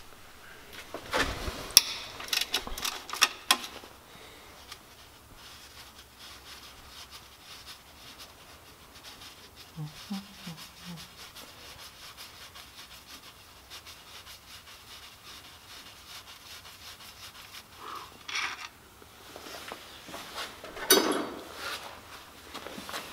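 Hand wrench working the bolts of a Focus ST engine's balance shaft assembly: scattered metal clicks and scraping, busiest in the first few seconds, with a louder clatter of handling near the end.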